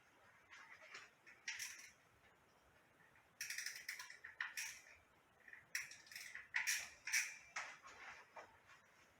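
Handling noise of small hard parts: several irregular bursts of rattling and scraping, with the busiest stretch from about three and a half to eight seconds in.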